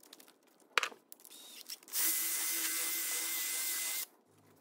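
A small electric power tool runs at a steady pitch for about two seconds, then cuts off. Before it come a few light clicks and a sharp knock.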